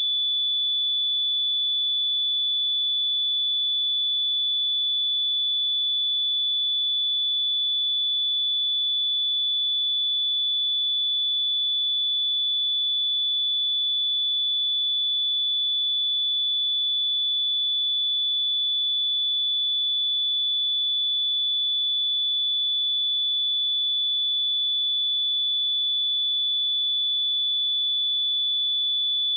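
A pure 3466 Hz sine-wave test tone, one steady high-pitched whistle-like pitch held at constant level, used for checking speakers and headphones.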